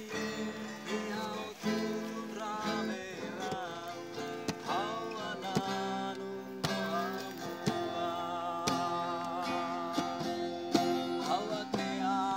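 A man singing to a strummed acoustic guitar, with a wavering vibrato on his held notes.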